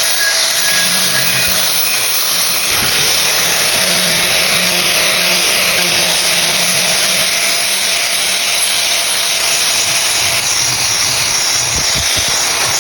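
A power tool running steadily as it works wood, a constant hiss with a faint steady hum under it.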